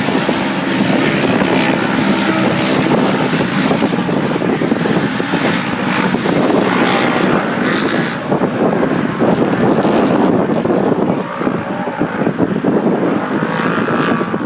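Off-road race vehicle engine running hard at speed, its pitch rising and falling, with wind buffeting the microphone.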